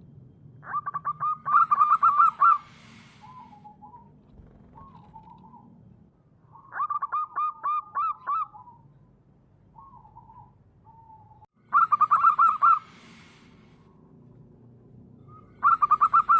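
Zebra dove (perkutut) of the local wild type singing: four phrases of rapid, evenly repeated cooing notes, with a few softer single coos between the phrases.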